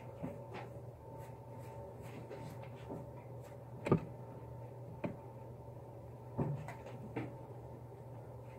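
A few sharp knocks and taps of a marker against a whiteboard as someone writes, the loudest about four seconds in, over a steady room hum.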